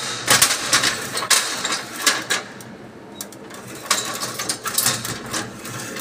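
Aluminium step ladder clattering as it is set up and climbed: a run of sharp metal knocks and rattles that pauses around the middle and starts again about four seconds in.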